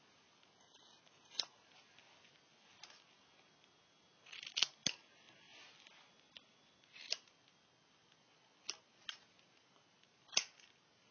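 Scissors snipping through a doll's hair to cut it off: about eight short, sharp snips at irregular intervals, one every second or two, two of them close together.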